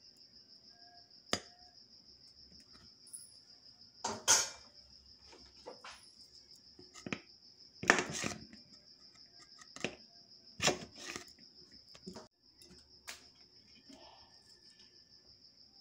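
Large aluminium cooking pot and lid knocking and scraping in a series of sharp clanks, loudest about four and eight seconds in, as the dough seal around the rim is broken open. Crickets chirp steadily and high-pitched behind it.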